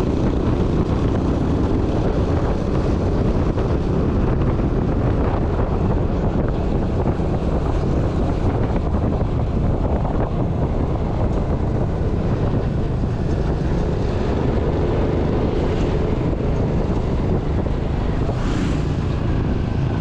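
Wind rushing over the microphone, with steady engine and road noise from a motorcycle being ridden.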